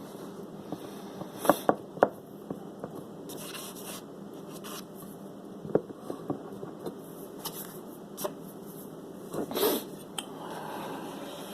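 Hands working a new foam surround onto a loudspeaker's glued cone edge: scattered light taps, clicks and scratchy rubbing, with a few sharp clicks about a second and a half in and a short rustle near the end, over a steady room hiss.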